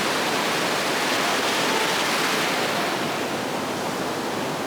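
Ocean surf washing onto a beach: a steady roar of waves that swells slightly about two seconds in and eases a little after three.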